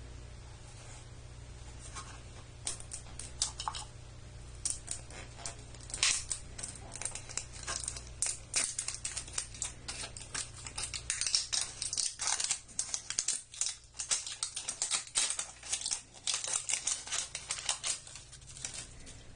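Clear plastic shrink wrap being peeled and torn off a small plastic toy capsule, crinkling and crackling irregularly. It starts about three seconds in and gets busier from about six seconds on.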